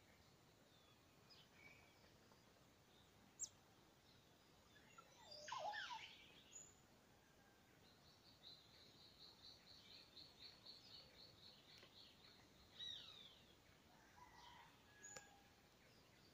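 Faint dawn chorus of birds: scattered chirps, a louder call sweeping down in pitch about five seconds in, then a rapid, even trill that runs for about four seconds, over a faint steady hiss.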